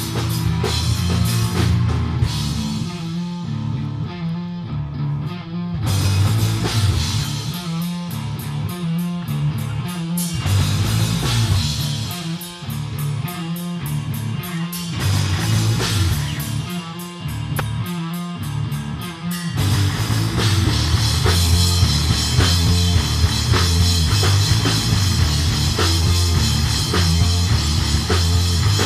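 Live rock band of two electric guitars, electric bass and drum kit playing. From about six seconds in the band plays a stop-start riff of short hits with gaps between them, with hi-hat ticking. About twenty seconds in it breaks into full, continuous playing.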